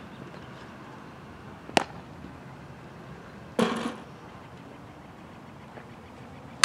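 Three knocks of a softball in play during a fielding drill: a sharp crack about two seconds in, a duller, fuller knock at about three and a half seconds, and another sharp crack at the very end.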